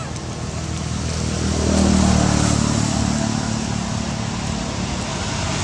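A motor vehicle engine running steadily, getting louder about two seconds in and then easing off slightly.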